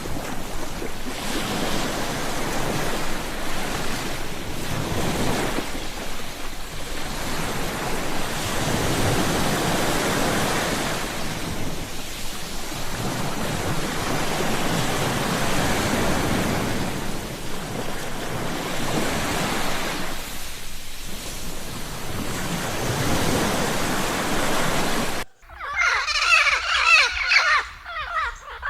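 Ocean surf: waves wash in and recede in swells every few seconds. About three seconds before the end the surf cuts off suddenly, and a crow starts cawing in harsh, repeated calls.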